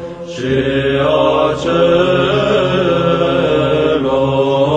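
Slow Orthodox church chant playing as background music: voices holding long notes that shift slowly in pitch.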